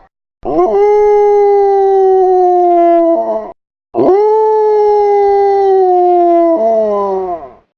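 Dogs howling: two long howls, each rising quickly and then sliding slowly down in pitch, separated by a short pause. A second, lower howl joins near the end of each one.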